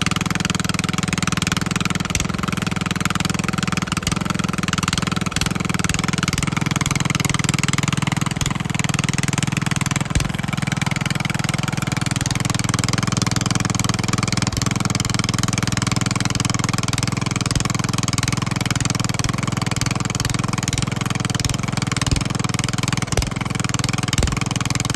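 Riding lawnmower's small engine running steadily under throttle as the mower, stuck in creek mud, tries to drive and only digs itself in deeper.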